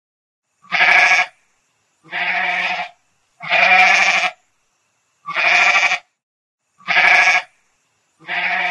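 Domestic goat bleating six times, each bleat under a second long, about one every second and a half.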